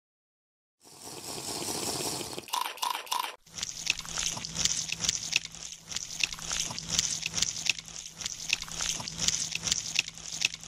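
Wet slurping sound effect for a fish sucking down an eel: a brief hiss and three quick pops, then a long dense run of small wet sucking clicks over a low steady hum.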